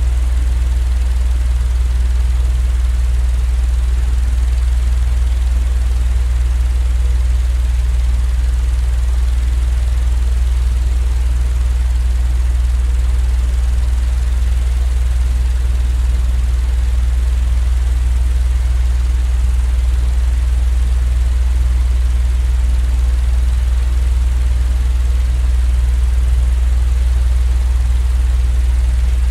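Steady, unchanging deep mechanical drone played as continuous sleep noise, with a faint even hiss above it and no clacks or changes.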